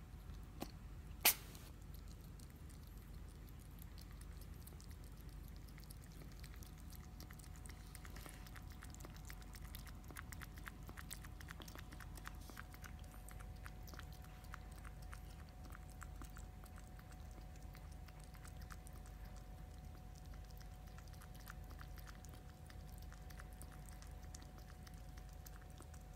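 A kitten lapping water from a bowl: a long run of faint, rapid wet clicks. A single sharp click about a second in is the loudest sound.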